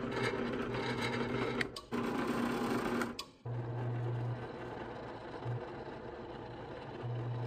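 Drill press running, its small pilot bit cutting into steel plate, a steady motor whir and hum. The sound drops out briefly twice, about two and three and a half seconds in, then carries on.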